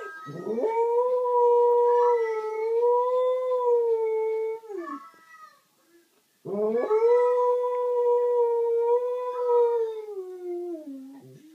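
An Australian Shepherd–Bluetick Coonhound mix dog howling: two long hound howls with a short pause between them. Each rises quickly at the start and then holds a steady pitch; the second slides down in pitch toward its end.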